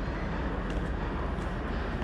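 Steady low rumble of distant city traffic, with a few faint light ticks of footsteps on stone steps.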